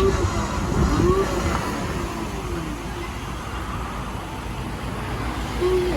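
Electric drive motors and gearboxes of a battery-powered children's ride-on Jeep running as it is tested, the pitch rising and falling a few times.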